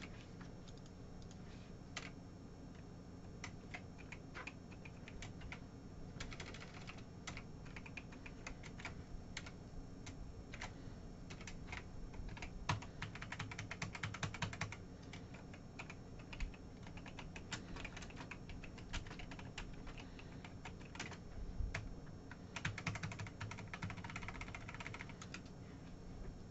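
Typing on a computer keyboard, in three runs of rapid key clicks with scattered single keystrokes between them.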